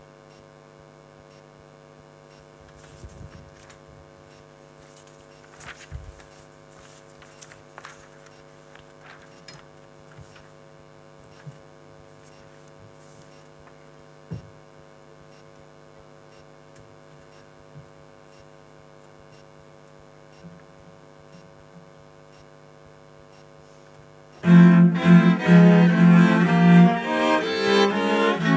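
Steady electrical hum with a few faint knocks, then about 24 seconds in a string quartet of violins, viola and cello starts playing suddenly and loudly, the cello strong in the low end.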